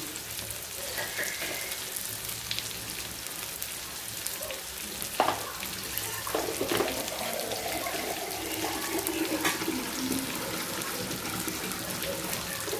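Water running from a tap, with faint ringing tones like a vessel filling about halfway through, over a steady frying sizzle from the wok. A few light knocks of containers come around the middle.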